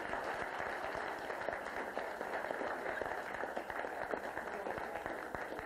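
A crowd of seated guests applauding: many hands clapping in a dense, steady patter.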